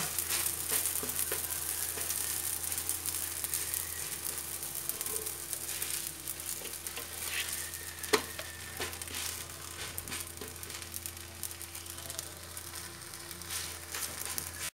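Msemen flatbreads sizzling in oil on a hot electric griddle, a steady crackle of small spits, with one sharper pop about eight seconds in. A faint steady hum runs underneath.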